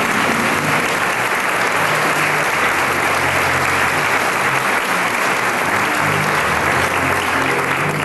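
Audience applauding steadily, with background music and a bass line playing underneath.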